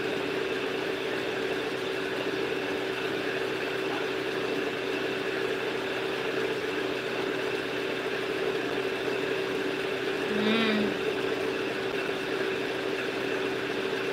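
Steady mechanical hum at one constant pitch, like a small motor running continuously. A brief voice sound comes in about ten seconds in.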